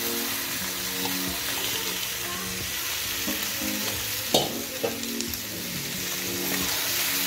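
Raw chicken liver sizzling in hot oil in a frying pan, just tipped onto fried onion and spice masala. There are a couple of sharp clicks around the middle.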